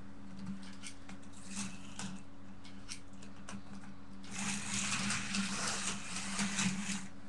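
A slot car's small electric motor whirring as the car runs on the track for about three seconds, starting a little past halfway. Before it there are a few scattered light clicks, over a steady low hum.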